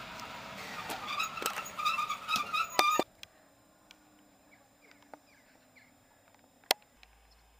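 ET22 electric freight locomotive rolling slowly past, with a high wavering squeal and sharp clanks from its wheels for about three seconds. The sound then drops suddenly to a faint hiss, with one sharp click later on.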